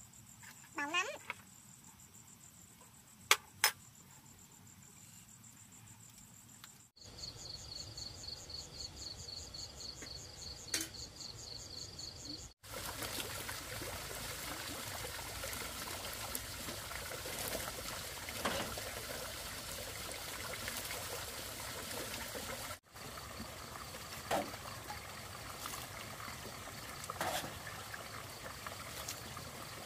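Water poured from a bowl over a bather, splashing and trickling down, the loudest and longest sound, running from about a third of the way in to about three quarters. Before and after it, crickets chirp in rapid even pulses, and two sharp clicks sound early on.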